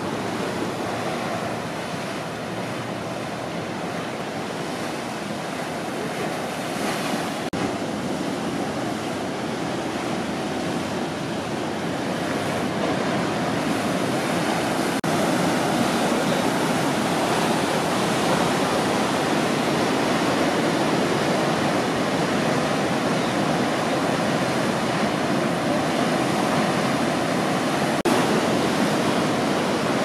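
Ocean surf breaking and washing steadily, growing a little louder about halfway through.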